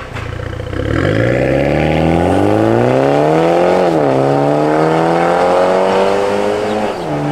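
BMW X4 30i's turbocharged 2.0-litre four-cylinder, fitted with a valvetronic performance exhaust, accelerating hard away. Its note climbs, drops at an upshift about four seconds in, climbs again, and drops at a second upshift near the end.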